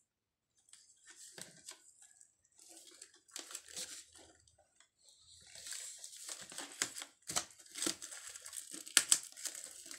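Plastic packing film crinkling as a folding table is handled and turned over, with a few sharp clicks and knocks. The crackling grows busier and louder in the second half.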